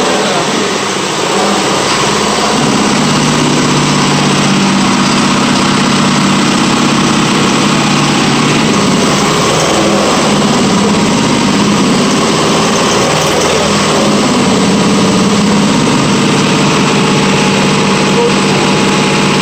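A 2005 Hyundai EF Sonata gasoline engine on a training stand, running steadily at idle.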